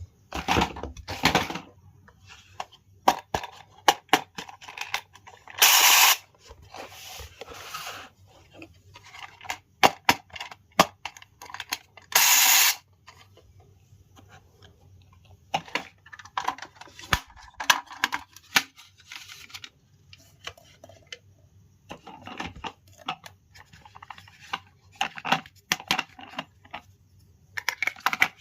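Small hard plastic toy pieces clicking, tapping and being set down while a miniature toy kitchen set is unboxed, with short bursts of packaging rustling or tearing. The two loudest bursts come about six seconds in and about twelve seconds in.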